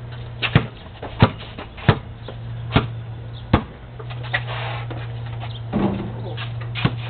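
Basketball bouncing on a concrete driveway: a row of separate sharp knocks, about eight in all, unevenly spaced, over a steady low hum.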